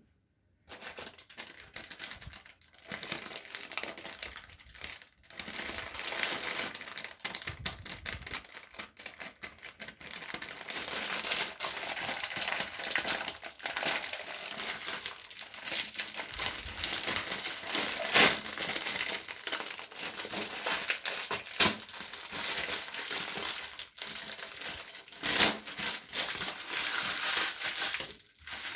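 Wet, squishy cleaning sounds: soapy lather crackling steadily as it is squeezed and worked, with a few sharper clicks now and then.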